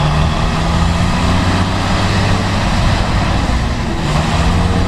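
A machine running steadily and loudly: a low engine-like hum with a dense hiss over it, unchanging throughout.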